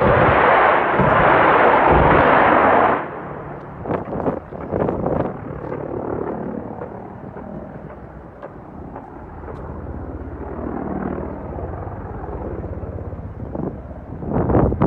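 A loud rushing blast for about three seconds, then a military helicopter's engine and rotor running steadily, with a few sharp cracks of gunfire about four to five seconds in and near the end.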